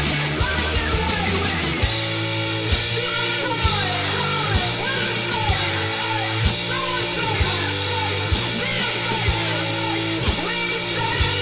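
Punk rock band playing: guitar, bass and drums with a heavy beat about once a second, and singing over it.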